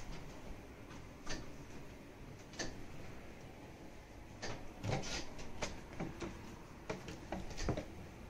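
Pet rabbit moving over a duvet-covered bed: scattered soft taps and knocks, about a dozen at irregular intervals, over faint rustling of the bedding.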